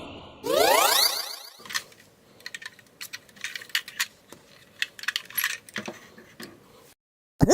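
A quick rising sweep sound effect, then a scattered run of small, light clicks and taps lasting several seconds.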